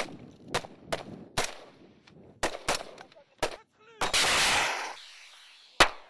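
Gunfire in a live-fire exercise: about seven single shots at irregular intervals, then a longer, louder blast lasting under a second about four seconds in, and one more sharp shot near the end.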